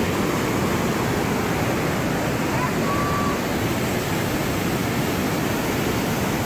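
Flash-flood water rushing down a creek in a steady, loud torrent. A brief faint high tone, like a whistle, sounds about three seconds in.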